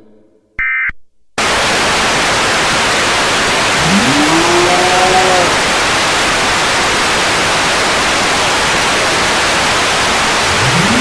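Loud, even static hiss that cuts in abruptly about a second and a half in, after a brief electronic beep. Midway through the static, a single tone glides upward, holds briefly and fades.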